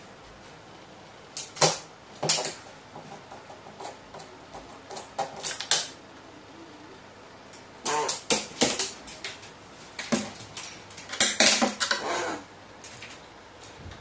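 Pet crow handling a wooden chopstick: irregular bursts of clattering, scraping and tapping, several in a row, the longest and loudest cluster about eleven to twelve seconds in.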